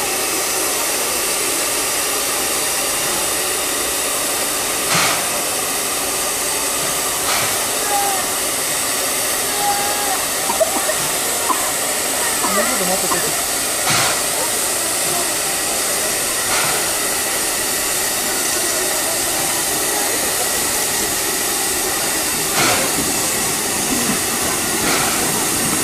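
Steady hiss of steam venting from a C11 steam tank locomotive standing on a turntable, with a few sharp clicks spread through it.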